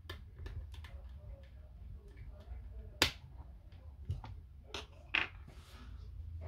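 Sharp clicks and light taps of small tools and parts being handled while an Apple Time Capsule is taken apart, the loudest click about three seconds in and a few more close together near the end.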